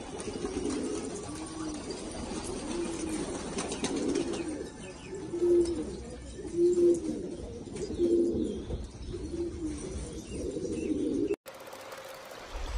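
Afghan domestic pigeon cooing, a low coo repeated about once a second, loudest midway. The cooing cuts off suddenly near the end.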